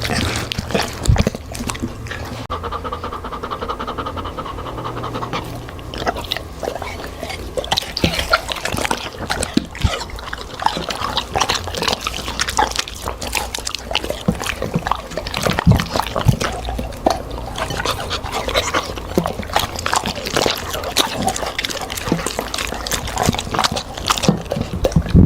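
A dog eating vegetables, with many irregular, short, wet chewing and crunching sounds.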